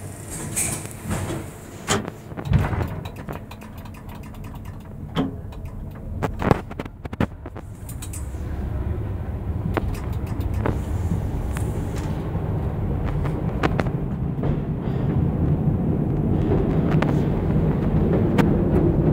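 Siemens electric subway car built in 1934, heard from its cab pulling out. Several sharp clicks and knocks come in the first half as the controller is worked. A steady low rumble of wheels on rail then sets in and grows louder as the train gathers speed.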